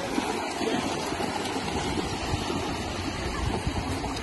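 Small sea waves washing onto a shingle beach in a steady rush of water, with dogs running through the shallows.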